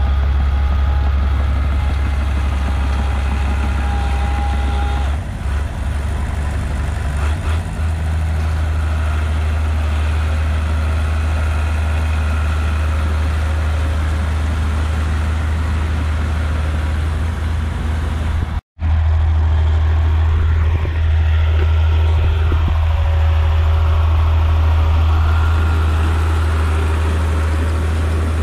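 Farm tractor's diesel engine running steadily under load with a strong low drone, as it drives its cage wheels and rotary tiller through deep mud. The sound drops out for an instant about two-thirds of the way in.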